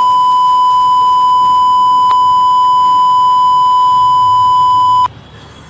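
A loud, steady, high-pitched electronic beep tone, held unchanged for about five seconds and then cutting off suddenly.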